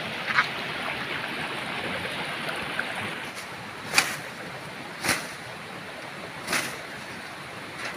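Steady rushing of running water, with four short, sharp crunches of leaves and twigs as someone climbs through dense undergrowth.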